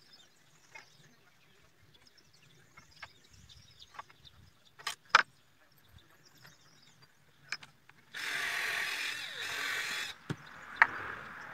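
Electric drill driving a screw into a wooden board, running for about two seconds near the end. Before it, a few scattered sharp clicks and knocks of screws and wood being handled.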